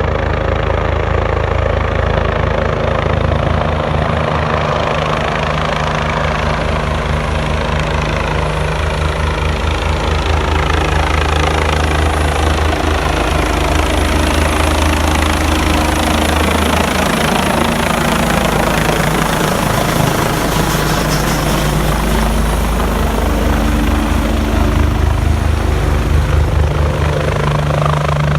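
Eurocopter EC145 twin-turbine helicopter running loud and steady: a fast chop from the rotor blades under a thin high turbine whine, the tone shifting as the helicopter moves.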